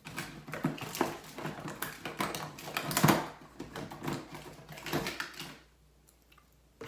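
Close handling noise of scissors and a lace wig: a quick, irregular run of clicks and rustles, loudest about halfway through, stopping about a second before the end.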